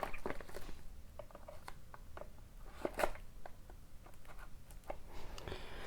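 Knife cutting into a sealed cardboard trading-card box and the packaging being worked open: scattered small clicks and crackles, with one sharper click about three seconds in.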